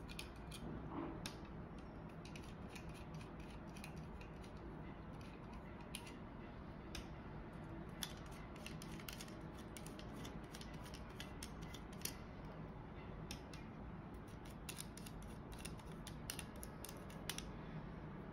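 Faint, scattered small clicks and scrapes of small thumbscrews being turned off a circuit board by hand and set down on a tabletop, at uneven intervals.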